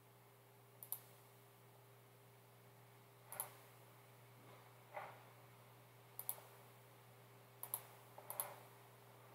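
Quiet computer mouse clicks: about six spaced clicks, most heard as a quick press-and-release pair, as camera settings are picked from a software menu.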